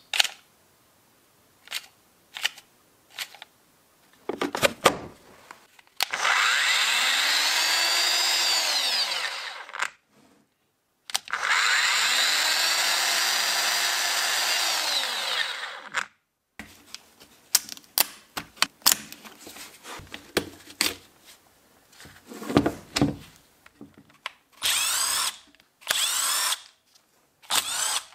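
A small electric power tool motor run twice for about four seconds each, its pitch rising as it spins up and sinking as it stops, then in several short bursts near the end, with clicks and knocks of handling in between.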